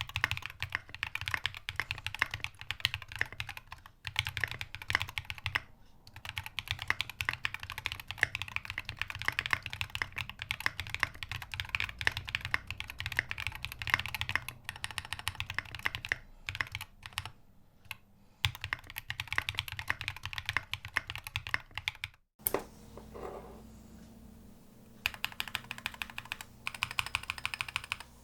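Fast typing on a custom mechanical keyboard with lubed KTT Halu Halo switches, an aluminium plate with no sound dampening, and SA-profile keycaps: a dense run of key clacks. About 22 seconds in the typing breaks off abruptly, leaving a quieter pause, then resumes a few seconds later.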